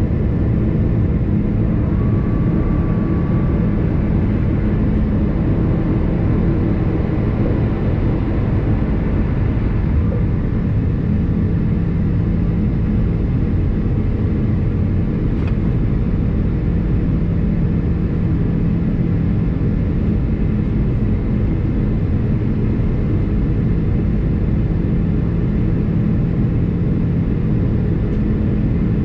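Airbus A330-200 cabin noise heard from a seat: a steady, even rumble of engine and airflow with a low hum, typical of the climb after takeoff.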